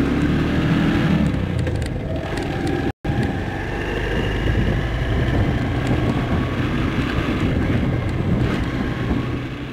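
Motorcycle running at riding speed, its engine mixed with steady wind and road noise on the bike-mounted microphone. The sound breaks off for an instant about three seconds in and fades near the end.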